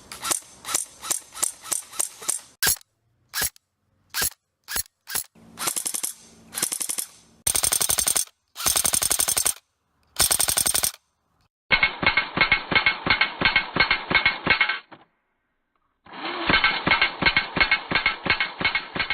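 APS ASR-118 electric airsoft rifle firing with its electric blowback action. It starts with quick single shots at about four to five a second, then a few slower single shots, then bursts of full-auto about a second long. The second half holds two longer full-auto strings that sound duller.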